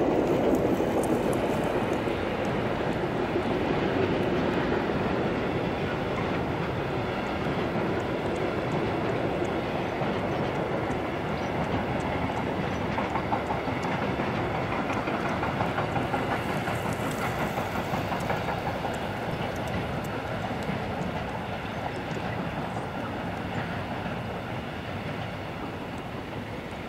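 Freight train hauled by a DB class 232 "Ludmilla" diesel locomotive crossing a viaduct, its wagons rolling over the rails in a steady noise. It is loudest in the first few seconds as the locomotive passes and fades slowly toward the end.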